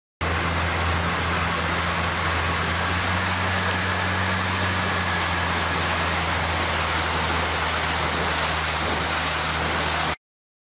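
Motorboat engine running at a steady speed, with a constant low hum under an even rush of wind and water. It starts just after a brief silence and cuts off abruptly near the end.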